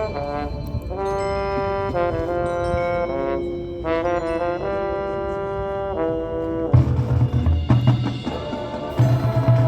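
High school marching band's brass section playing held chords that change every second or so. About two-thirds of the way in, the brass drops away and percussion takes over with heavy low beats and sharp clicks.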